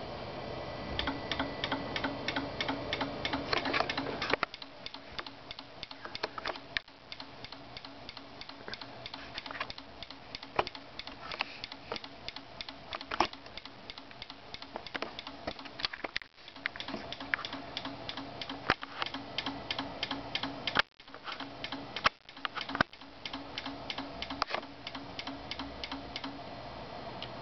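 A 20 A mechanical relay clicking rapidly and unevenly as a microcontroller switches it open and closed again and again in a relay test. A steady low hum sits under the clicks and drops away about four seconds in.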